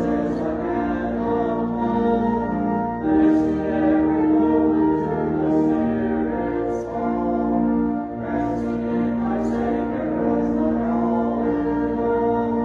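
A church choir singing an anthem or hymn in long held notes, with organ or piano accompaniment.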